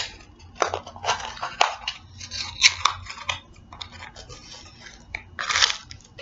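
Crinkling and tearing of a small blind box's packaging as it is opened by hand, in short irregular crackly bursts.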